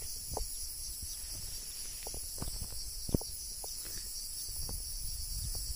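Steady high-pitched chirring of an insect chorus, with a few soft knocks and taps scattered through it, the sharpest about three seconds in.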